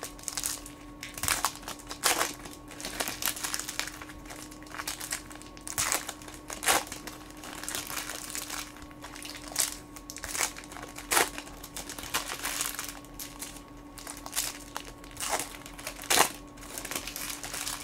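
Foil trading-card pack wrappers being torn open and crinkled by hand, with cards handled in between: irregular sharp crackles throughout, over a faint steady hum.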